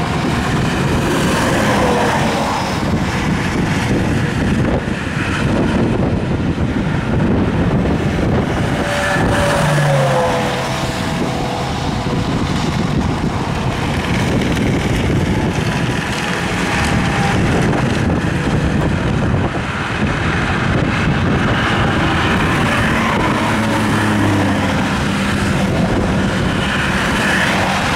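Highway traffic passing close by: semi trucks and cars, a continuous tyre and engine noise that swells and eases as vehicles go by, with a few tones dropping in pitch as trucks pass. Some wind on the microphone.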